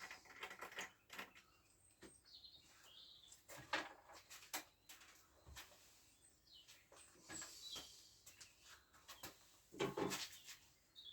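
Scattered light clicks and knocks of tools and parts being handled while a scooter engine is taken apart, with a few faint bird chirps.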